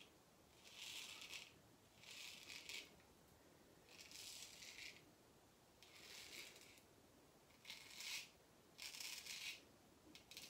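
Small straight razor scraping stubble through shaving lather in six or seven short, soft, raspy strokes, one every second or two.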